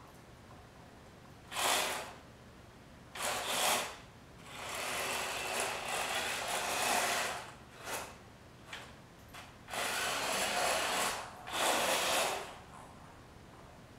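Small robot car's electric gear motors whirring as it drives across a hardwood floor, in a series of starts and stops: bursts from brief blips to about three seconds long.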